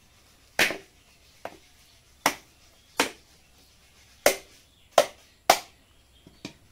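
A whole coconut struck repeatedly with a heavy chopping knife to crack it open: six sharp, hard knocks at uneven intervals, with a couple of lighter taps between them.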